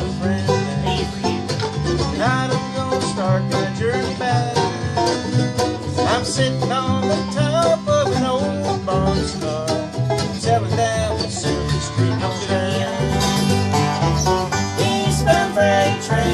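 Acoustic bluegrass jam: strummed acoustic guitars and a picked banjo playing an instrumental passage together over a steady rhythm.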